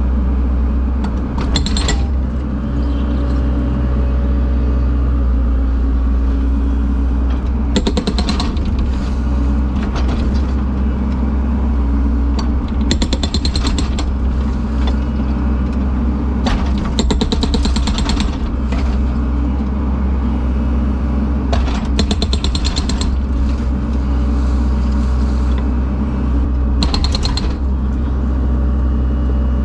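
Concrete breaker hammering an old concrete slab in short bursts of rapid blows every few seconds, over the steady running of a heavy machine's engine.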